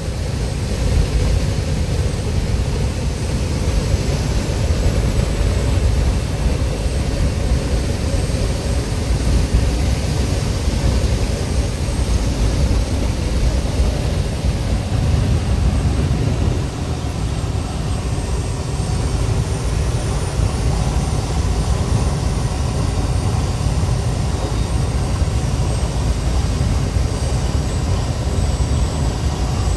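Fire engine cruising on the highway, heard from inside its cab: a steady low drone of engine and road noise, with a faint steady high whine.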